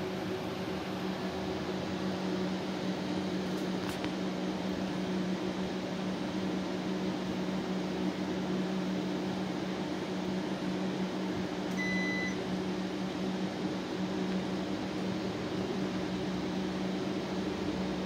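Steady air-conditioner hum. About twelve seconds in, the Panasonic CS-YN9TKJ split unit gives one short electronic beep as it takes the remote's power-off command.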